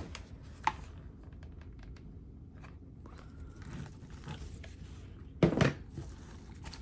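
Hands working craft pieces into a wreath: scattered light clicks, taps and rustles, with a louder knock about five and a half seconds in.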